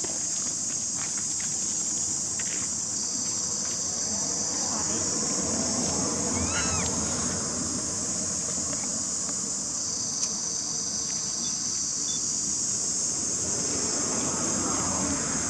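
Steady, high-pitched chorus of insects, with a brief high call about seven seconds in.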